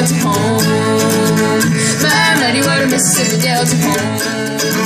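Live acoustic bluegrass band playing an instrumental passage: a bowed fiddle over strummed acoustic guitars.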